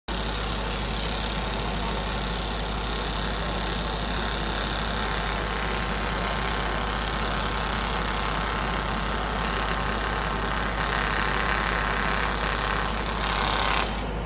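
Heavy construction machinery running steadily with a diesel engine at a constant pace. The sound drops away suddenly near the end.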